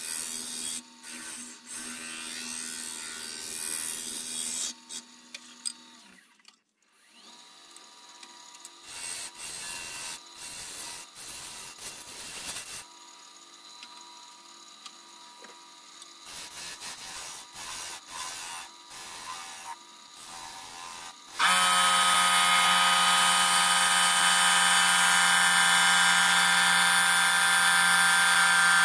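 Wood lathe running while a turning tool cuts and rubs on a black walnut blank, in uneven passes with a brief lull about six seconds in. At about 21 seconds a much louder, steady, whining machine sound starts and continues.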